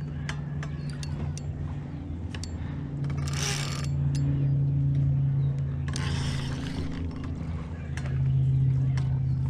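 Boat engine running steadily at low revs, a low hum that swells twice, with scattered small clicks and two short hissing bursts.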